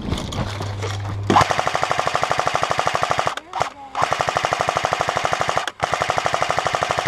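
Airsoft electric gun firing full-auto in three long bursts of very rapid, evenly spaced shots, with brief breaks between them.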